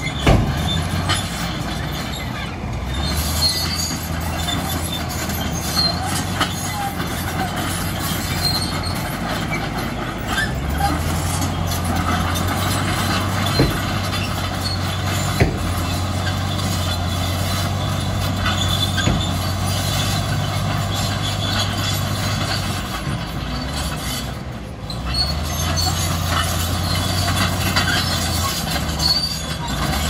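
Crawler bulldozer at work: its diesel engine runs steadily, easing off about ten seconds in and again near twenty-five seconds before picking back up, with metallic squeaking and a few clanks from its steel tracks.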